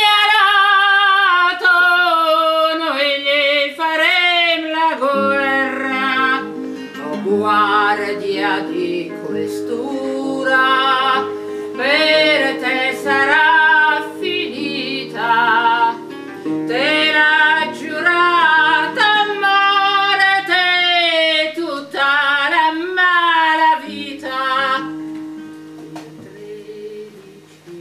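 A woman singing with acoustic guitar. She sings alone at first with a wavering vibrato, the guitar comes in about five seconds in, and near the end the voice stops and the guitar fades out.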